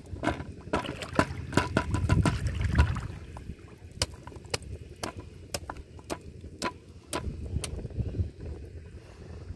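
Bamboo darki fish trap being shaken and knocked over a plastic bucket to empty out the catch, with water dripping and sloshing. A rapid flurry of knocks with a low rumble in the first few seconds, then single sharp knocks about twice a second.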